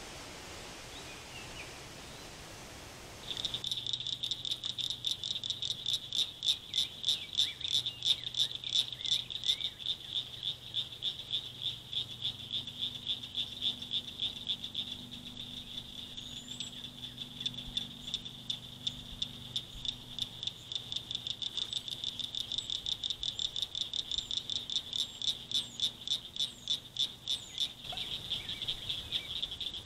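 Soft steady hiss, then about three seconds in a chorus of frogs calling at a pond starts abruptly: a continuous high-pitched rapid pulsing that swells and fades in waves.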